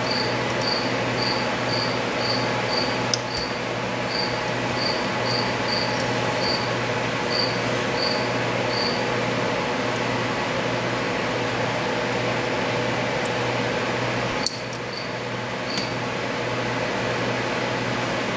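Steady room hum with a run of short, high chirps, about two or three a second, that stops about nine seconds in and returns briefly near the end. Two light clicks, one about three seconds in and one near the end.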